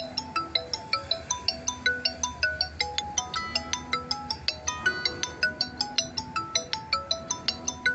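Background music: a quick melody of short, bright plinking notes, several a second, over a few longer low notes.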